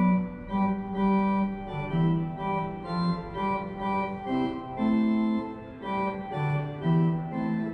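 Organ music from the Anker Clock, a melody of held notes that change about twice a second over a low bass line.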